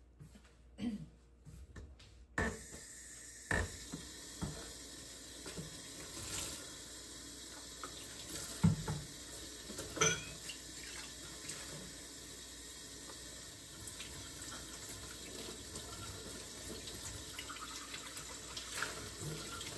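Kitchen tap running into the sink during washing-up, turned on about two seconds in, with a few sharp clinks and knocks of dishes.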